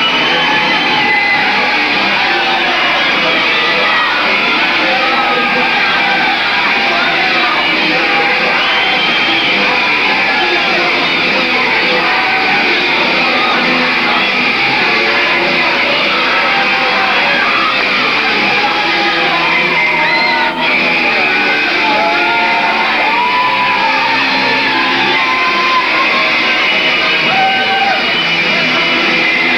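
Loud rock music with guitar playing throughout, with people yelling over it.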